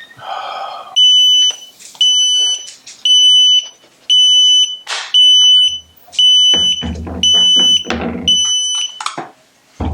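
Vacuum leak alarm of a SeaLife Sport Diver phone housing beeping, eight short high beeps about one a second, set off because the vacuum has been let off: the sign of a leak. Some handling knocks and rubbing come in over the later beeps.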